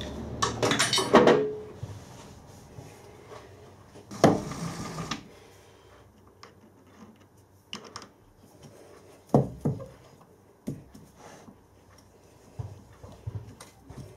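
Metal knocks and clinks of hand work at a lathe. A quick run of sharp knocks comes about a second in, from a soft-faced mallet seating a workpiece against the jaws of a four-jaw chuck. A longer clatter follows around four seconds in, then a few scattered light clinks as tools are handled.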